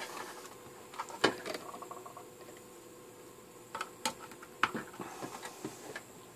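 Scattered light clicks and knocks of hands handling an opened CB radio's chassis and wiring while hooking it back up, the sharpest just over a second in and several more between about four and six seconds.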